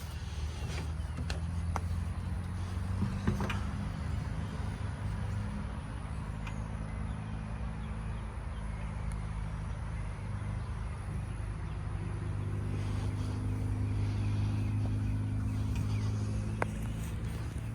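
Cat 415 backhoe loader's diesel engine idling with a steady low drone, rising a little in level for a few seconds in the second half, with a few faint clicks over it.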